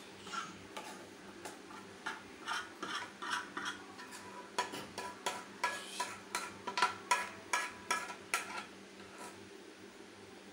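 Metal spoon scraping thick rice halwa out of a kadai onto a steel plate: a run of quick metal-on-metal clicks and scrapes, busiest in the middle, over a steady low hum.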